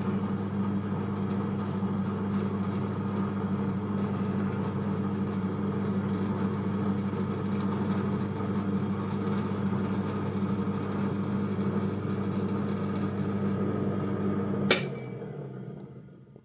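SK11 SDP-600V 600 W benchtop drill press running with no load, a steady motor hum. Near the end a click as it is switched off, and the hum drops away as the spindle winds down.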